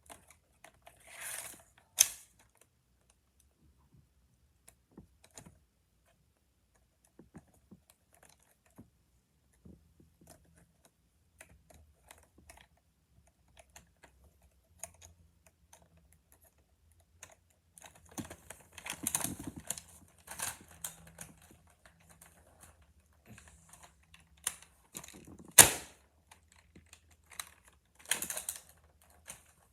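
Scattered plastic clicks and rattles from handling a Nerf blaster, with two loud sharp snaps, one about two seconds in and one near the end.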